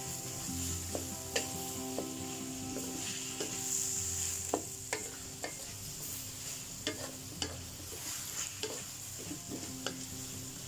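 Shrimp, chicken and vegetables sizzling in a stainless-steel wok as a wooden spatula stirs and tosses them, with scattered scrapes and knocks of the spatula against the pan.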